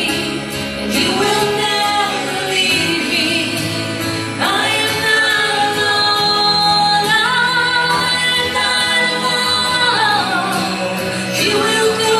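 A woman singing a worship song over backing music, holding long notes.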